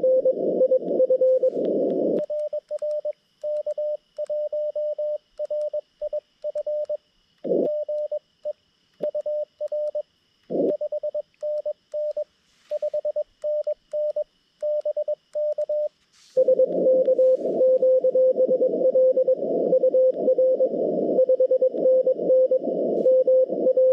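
Morse code from a Xiegu G90 transceiver: first the noisy band with a crowded pileup of CW signals, then about two seconds in the operator's own sidetone takes over, a clean single tone keyed in dits and dahs from a paddle key. At about sixteen seconds the receiver comes back with band noise and several overlapping CW calls.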